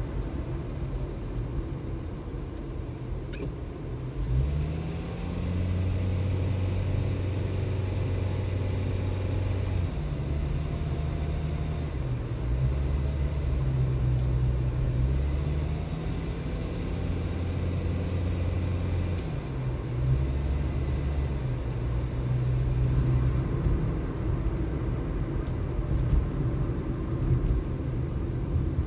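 Engine and road noise of a vehicle driving through town streets. The low engine note holds steady for a few seconds at a time, then steps up or down as the vehicle speeds up and slows.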